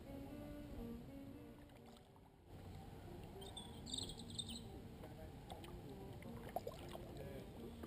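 Faint sound of a canoe gliding on a calm river, with a faint low tune whose notes step up and down throughout and a brief high bird call about four seconds in.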